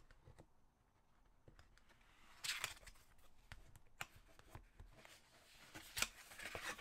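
Faint rustling and soft clicks of a rough-paper Apple Watch Ultra box as its two back tabs are lifted and the cover is folded open. Brief scrapes come about two and a half seconds in, a click at four seconds, and more rustling near the end.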